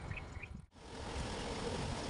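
A few short, high chirping calls repeating quickly, cut off suddenly by a brief dropout. After the dropout comes a steady fan-like hiss with a faint hum.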